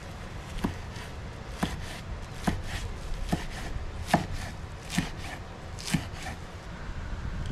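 Fresh parsley being chopped with a hammered-steel cleaver-style knife on a wooden cutting board: the blade knocks on the board about once a second, seven chops in all.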